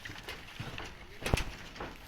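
Scattered light knocks and taps, with one loud sharp thud a little past halfway.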